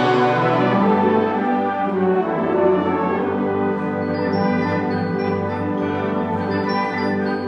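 Symphonic wind ensemble playing, with the brass prominent in full, held chords.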